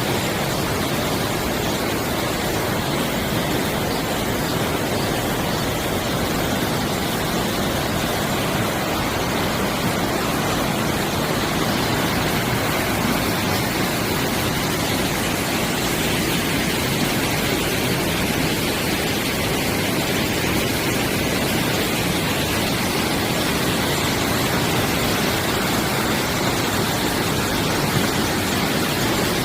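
Mountain stream water rushing: a steady, even wash of water noise.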